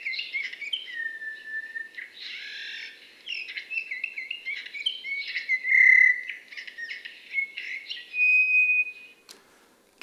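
Eurasian bullfinch singing its ordinary song: a warble of short scratchy, squeaky notes broken by a few plain, longer whistles, the last held for about a second before the song stops near the end.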